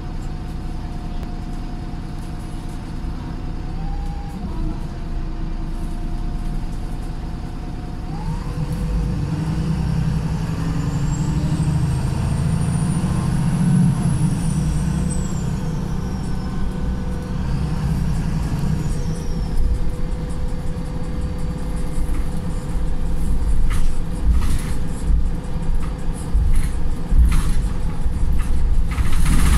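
Engine and drivetrain of a VDL SB200 Wright Pulsar single-deck bus running in limp mode, getting louder as it pulls. A high whine rises and then falls around the middle.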